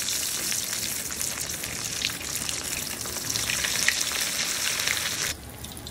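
Breaded chicken nuggets deep-frying in hot oil: a steady, dense sizzle full of fine crackles, dropping suddenly to a softer sizzle near the end.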